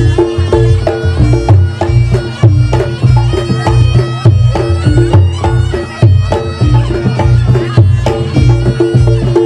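Reog Ponorogo gamelan accompaniment: a slompret shawm plays a reedy, sustained melody over kendang drums and struck kenong and gong notes in a steady beat.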